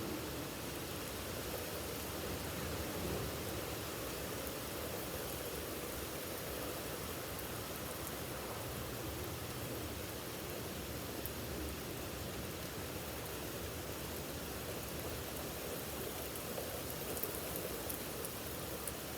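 Heavy rain falling steadily, an even hiss of drops, with a few sharper drop ticks near the end.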